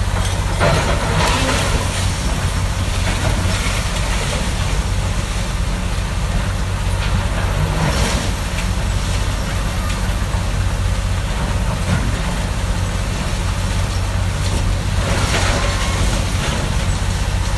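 Heavy diesel demolition machinery running steadily, with a few short crunching knocks from the demolition work.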